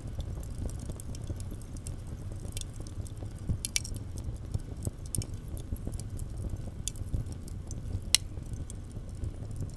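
Burning charcoal coals in a barbecue grill making little plinky sounds: scattered tinkling pings and crackles over a steady low rumble, with one sharper ping near the end.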